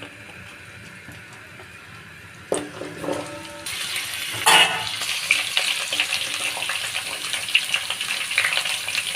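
Chunks of pumpkin and potato going into hot oil in a kadai: a knock about two and a half seconds in, then loud sizzling with crackles that swells sharply as the pieces hit the oil and keeps going.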